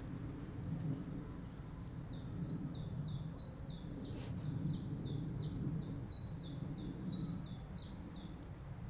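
A bird calling the same high, quick note over and over, about four notes a second, starting about two seconds in and stopping near the end. Under it runs a steady low rumble of wind.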